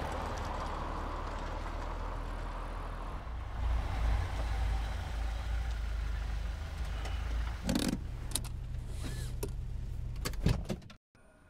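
An old Volvo estate car driving: its engine and road noise make a steady low rumble, with a few sharp knocks near the end. The sound cuts off suddenly just before the end.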